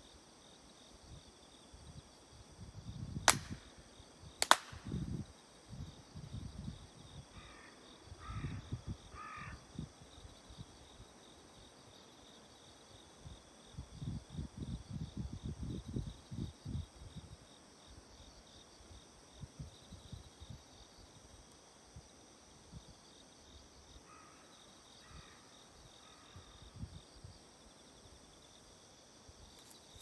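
Two sharp handclaps about a second apart, the double clap of a Shinto-style prayer. A crow caws three times a few seconds later and again more faintly near the end, over a steady shrill of insects.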